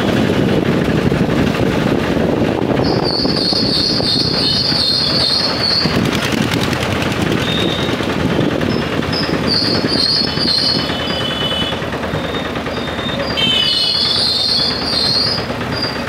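Engine van's small engine running with a steady rattling drone as the van drives along. A high-pitched squeal rises over it three times, for a few seconds about three seconds in, briefly near ten seconds and again near fourteen seconds.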